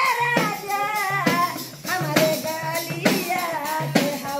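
A woman singing a Bhojpuri folk song in a high voice, accompanied by a hand tambourine beaten in a steady rhythm of about one stroke a second.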